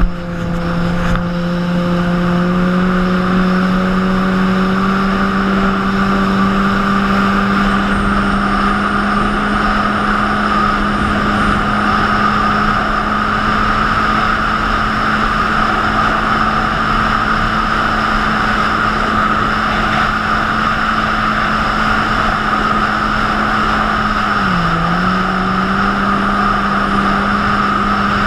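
Jet ski engine running steadily at cruising speed over a steady rushing noise. Its note rises slightly about two seconds in and dips briefly near the end as the throttle eases, then picks up again.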